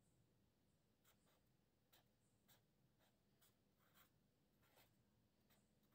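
Faint scratching of a pen drawing on paper: about ten short, irregular strokes.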